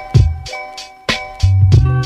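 Background music with a beat: sharp drum hits and deep bass notes over held chords.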